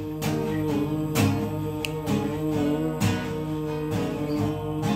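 Instrumental intro to a song: a guitar strumming chords in a steady rhythm, with an accented strum about once a second.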